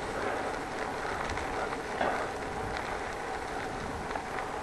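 Steady rushing noise with a low rumble, from wind and movement on an action camera's microphone.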